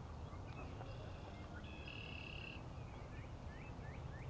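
Wild birds calling: a held, even call of about a second near the middle, then a quick run of short chirps near the end, over a low steady rumble.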